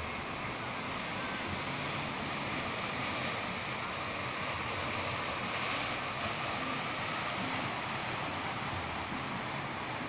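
Steady rush of sea waves and surf, with wind buffeting the microphone.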